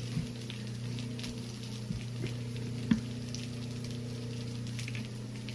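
Potato pancakes sizzling and crackling as they fry in an electric skillet, over a steady low hum. A sharp tap sounds about three seconds in, with a few smaller clicks around it.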